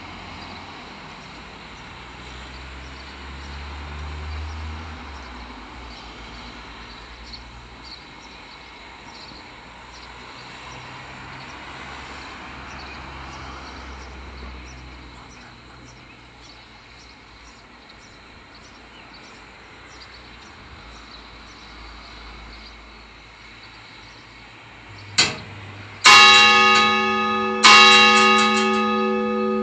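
A church bell starting to toll near the end: one light first strike, then two full strikes about a second and a half apart, each ringing on and fading slowly. Before it there is only faint background noise with faint, regular high chirps.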